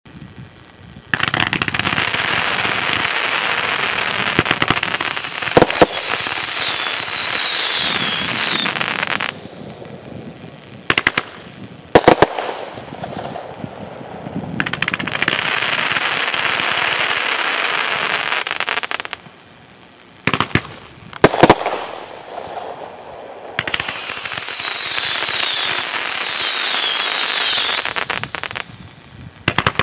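Consumer firework going off: three long stretches of dense crackling, each several seconds long, with sharp bangs of bursting effects in between. A high falling tone rides over the crackle in the first and last stretches.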